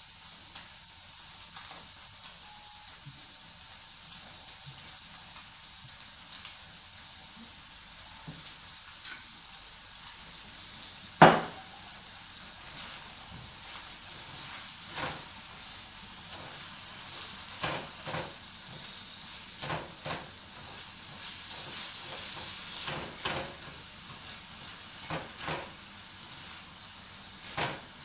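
Tofu cubes and garlic frying in a wok, with a steady sizzle. In the second half a spatula scrapes and taps against the pan in short, irregular clicks. There is one loud knock a little past the middle.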